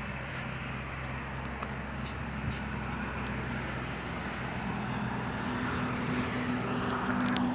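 Steady low hum of a large engine running, with a second, higher engine tone joining about five and a half seconds in.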